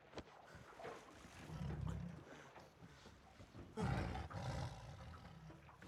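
Tiger growling low: one growl about two seconds in and a louder one starting about four seconds in.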